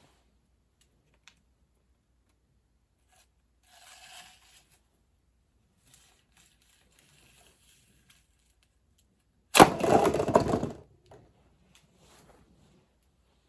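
A sudden sharp crack followed by about a second of clattering, about ten seconds in, with a faint brief rustle a few seconds earlier.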